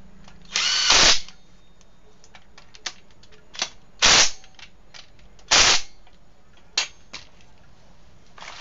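Impact wrench hammering on a bolt at the rear of a Honda Vario scooter's engine to loosen it, in three short bursts of rapid impacts, the first about half a second long and the other two shorter, with small clicks of the tool between them.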